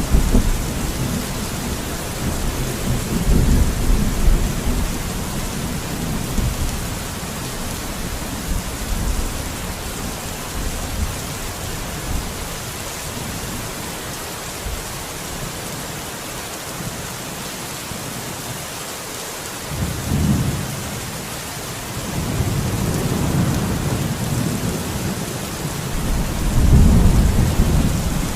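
Steady heavy rain with thunder rumbling in several long low swells, one near the start, one a few seconds in, and a stronger one building near the end.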